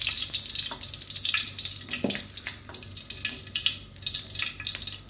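Pieces of labang fish fat frying in their own rendered oil in an aluminium wok: steady sizzling with many small crackles, and a single light knock about two seconds in.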